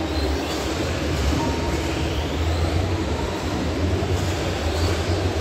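Electric RC touring cars on Tamiya TT-01/TT-02 chassis with brushed motors racing round an indoor track, their motor whine rising faintly as cars pass. This sits over the steady low rumble and hubbub of a large exhibition hall.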